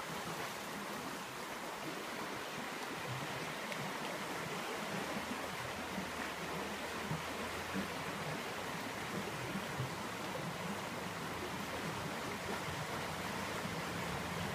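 Small creek running over a shallow rocky riffle: a steady rush of water. A low rumble comes in about five seconds in.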